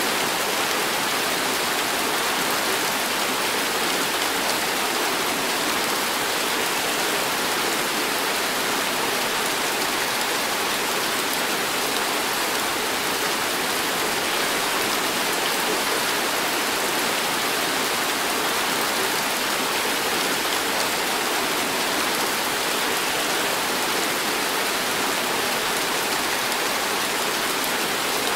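Heavy tropical rain pouring down: an even, unbroken hiss that holds steady throughout.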